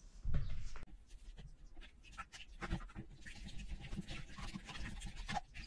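Whisk beating eggs and sugar in a mixing bowl: quick, irregular taps and scrapes against the bowl, with a short louder sound right at the start.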